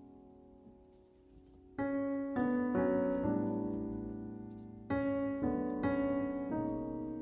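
Soft solo piano background music: a chord fades away, then a slow phrase of struck notes and chords enters about two seconds in, each left to ring and decay.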